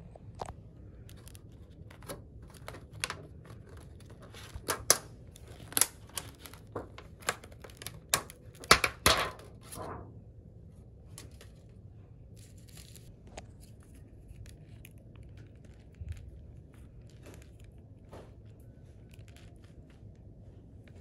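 Clear plastic lid of a takeaway bento box being pried open and lifted off: a run of sharp crackles and snaps, loudest about nine seconds in. After that only a few faint taps.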